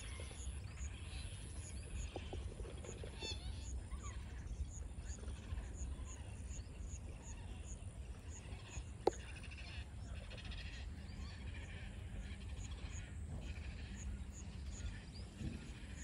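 Birds calling from a tree colony over a steady low wind rumble, with a faint high ticking repeating about twice a second and a single sharp click about nine seconds in.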